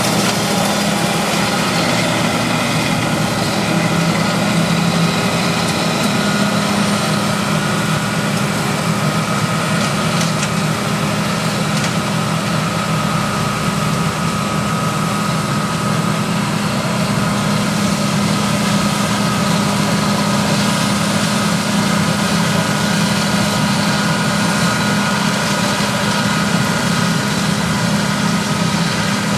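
John Deere combine running steadily while harvesting corn: a constant engine drone with a steady higher whine over it.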